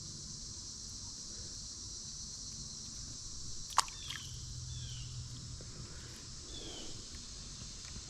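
Steady high-pitched insect trilling, with one sharp click about four seconds in and a few short falling chirps.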